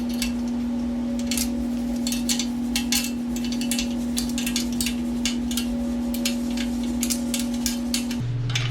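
Irregular metallic clicks and clinks of a 12 mm wrench working an exhaust-mount bolt loose, over a steady low hum that drops in pitch near the end.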